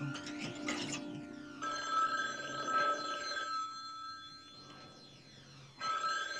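Wall-mounted telephone's bell ringing twice, each ring about two seconds long with a pause of about two seconds between. Background music fades out in the first second or so.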